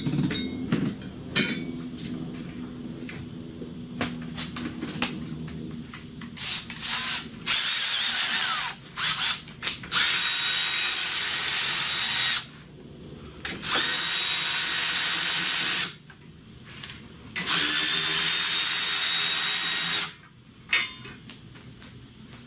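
Power ratchet run in several bursts, the longest two or three seconds each, each starting with a rising whine as it spins a fastener. Lighter tool clinks come first.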